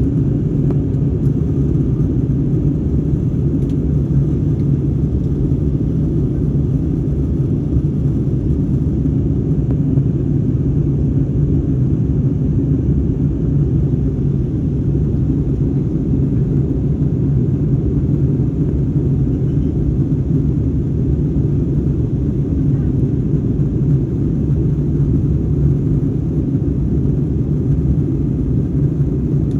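Steady low roar of an airliner's engines and airflow, heard inside the passenger cabin in flight.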